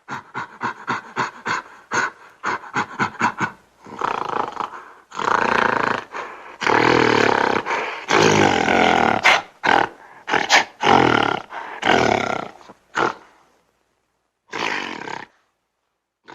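Gorilla calls: a quick run of short grunts, about four a second, then several long roars, and after a pause one shorter roar near the end.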